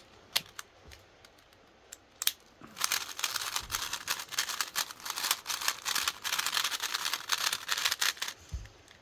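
GAN i Carry 4 3x3 speedcube being turned, with a few separate plastic clicks and then a fast, dense clatter of turns for about five seconds, as in a speedsolve, which stops suddenly near the end.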